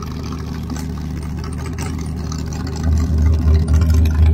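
Motorboat engines running at low speed, a steady low rumble that grows louder about three seconds in.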